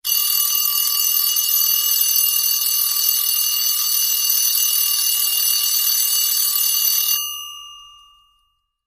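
Bell alarm clock ringing continuously and loudly; the ringing stops about seven seconds in and the bell tones die away over the next second.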